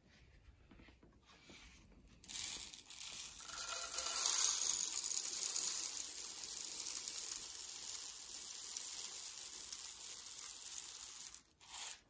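Dry rice poured into a Roborock S5's plastic dustbin: a steady hiss of falling grains starts about two seconds in and stops shortly before the end.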